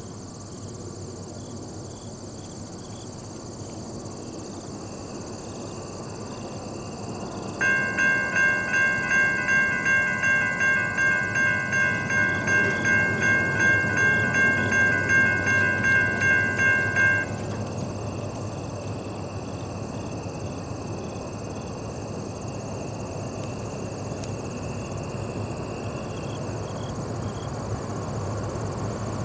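Railroad grade-crossing bell ringing at about two and a half strokes a second as the crossing activates and the gates come down. It starts several seconds in, rings for about ten seconds, then stops. A fainter, steady ringing tone and a low rumble carry on underneath.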